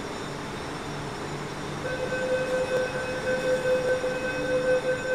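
Door-closing warning of an MTR Kwun Tong line Q-Train: a pulsing electronic warning tone starts about two seconds in, over the steady hum of the stationary carriage, signalling that the doors are about to shut.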